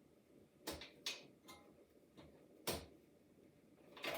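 Cable connectors being worked loose from a Macintosh SE motherboard: about five separate sharp clicks and knocks, then a quick run of clicks near the end.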